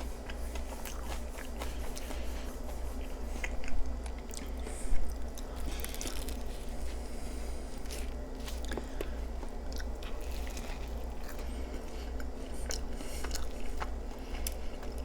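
Close-miked eating: a person biting and chewing a sloppy joe and tater tots meal, with many small wet clicks and crackles and two louder bites or knocks about four and five seconds in.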